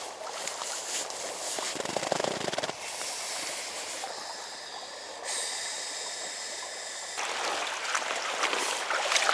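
A steady watery hiss of small waves lapping on a pebble lakeshore, mixed with wind. The texture changes abruptly several times.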